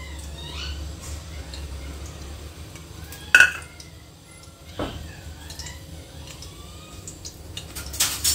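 A few sharp clinks of metal kitchen utensils and pots, the loudest about three seconds in, over a low steady hum while cooking oil heats in an aluminium pressure cooker on a gas stove.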